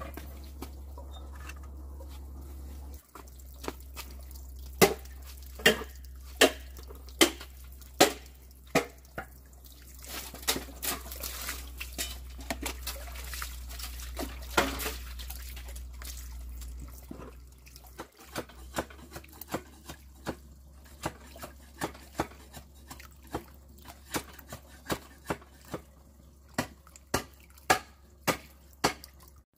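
A series of sharp knocks or taps, one to two a second, over a steady low hum that stops about two-thirds of the way in. A few seconds of hissing noise about halfway through.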